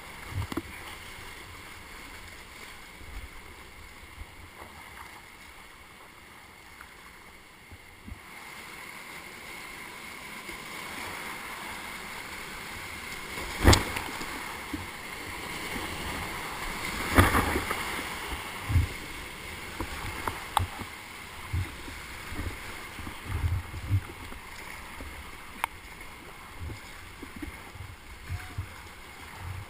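Rushing whitewater of a river rapid heard from a kayaker's helmet, with the splashes and low thumps of paddle strokes. Two loud sharp knocks come near the middle, about three and a half seconds apart.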